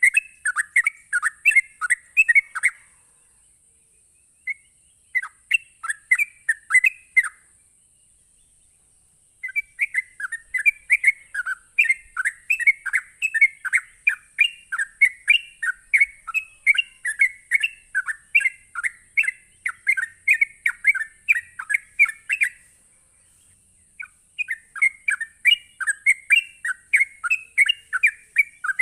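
Yellow-vented bulbul (trucuk) singing its rapid rolling 'ropel' song: long runs of quick chirpy notes, several a second, broken by a few short pauses.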